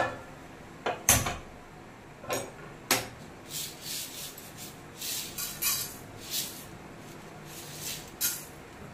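Light clinks and clatters of kitchen utensils, about ten separate short knocks at irregular intervals. Near the end, seeds are sprinkled into an empty non-stick frying pan on a gas stove.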